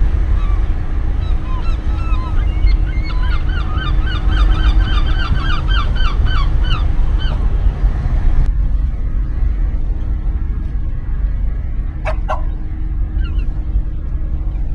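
A flock of birds calling, many short honking calls in quick succession overlapping one another, over a steady low rumble. The calls stop about eight seconds in.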